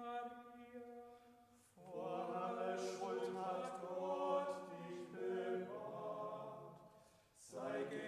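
Voices singing a slow German Marian hymn. A long held note gives way to a new phrase about two seconds in, and a short breath near the end leads into the next phrase.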